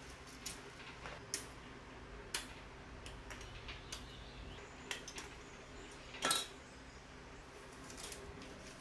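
Sharp clicks and light clatter of plastic Gunpla model-kit parts: runners being handled and parts snipped off them with hobby nippers. There are about a dozen separate clicks, the loudest a little past six seconds in, over a low room hum.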